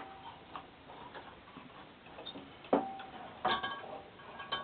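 Light metallic clicks and taps from the two knurled thumbscrews on a Durst M605 enlarger's colour head being loosened by hand, with a sharper ringing click a little under three seconds in and a cluster of knocks near the end.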